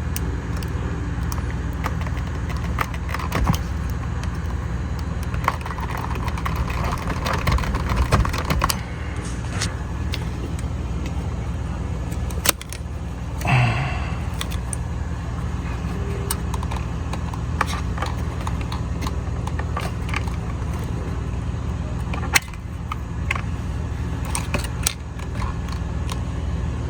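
Scattered clicks and rattles from hands working on a car's steering-wheel clips and airbag, with a brief louder sound about 13 seconds in, over a steady low hum.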